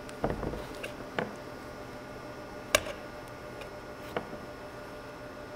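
A handful of light metal clicks and knocks, the sharpest about three seconds in, as the primary clutch cover is fitted back on during reassembly of the clutch.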